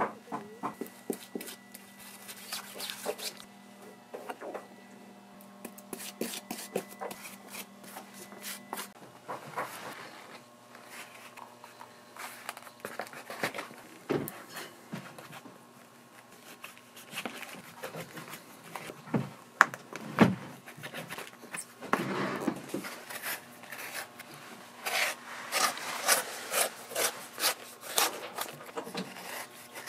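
Hand tools rubbing and scraping against a leather boot's upper and sole in uneven strokes, with a quicker, denser run of strokes near the end.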